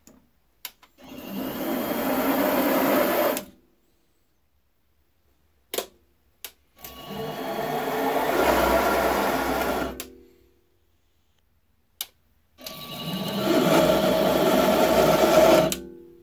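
Mini lathe running in three short spells. Each spell has a click, then the motor and chuck spinning up, running for two to three seconds and winding down, with silence between. These are single-point thread-cutting passes on the end of a bar stud.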